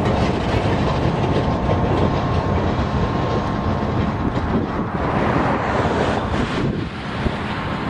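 Passenger train running along the track, a steady rumble with clacking wheels and a faint thin squeal in the first few seconds; the sound drops a little near the end.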